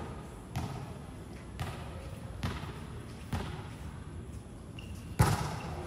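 A volleyball bounced on the hard court floor four times, about a second apart, then one sharper, louder smack about five seconds in, typical of the ball being struck for a serve.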